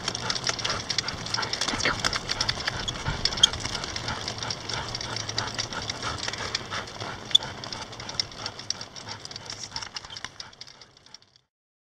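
A mini dog sulky rolling along asphalt behind two trotting Bouvier des Flandres: a steady, dense clicking rattle of the cart and harness hardware, with the tired dogs' panting. It fades out near the end.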